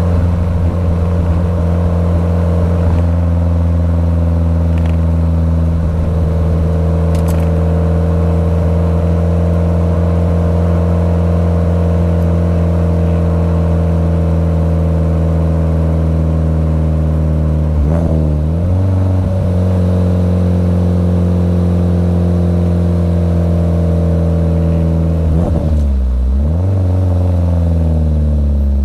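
Heard from inside the cabin, a tuned, big-turbo Mitsubishi Lancer Evolution X GSR's turbocharged four-cylinder engine drones at a steady speed while cruising. Its note dips and climbs back twice, once past the middle and once near the end.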